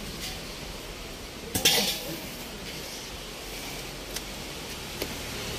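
Steel LPG gas cylinder knocking against concrete steps: one sharp clank with a short metallic ring about one and a half seconds in, then a couple of faint taps.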